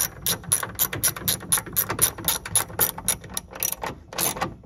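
Socket ratchet clicking rapidly as a nut is run down onto a mounting stud, about six clicks a second, with a brief pause near the end.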